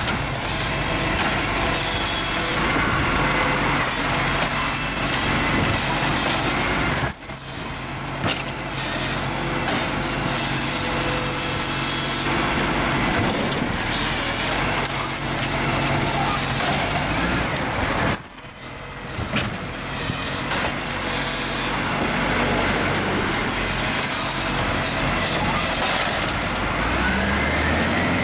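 Side-loading garbage truck idling at the kerb while its hydraulic arm lifts and tips wheelie bins into the body. The engine note rises near the end.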